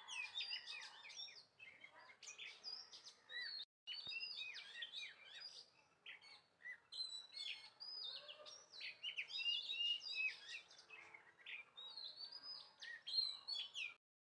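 Many small birds chirping and twittering together in quick, short, high notes. The chirping breaks off for a moment about four seconds in and stops abruptly just before the end.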